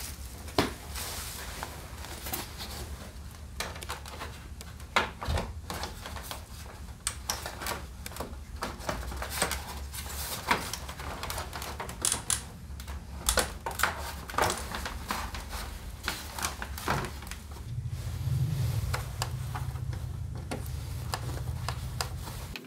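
Irregular clicks and knocks of a Honda PCX 125's stiff plastic body cowl being handled and fitted, with a screwdriver working at its plastic clips. A low steady hum runs underneath and grows louder about eighteen seconds in.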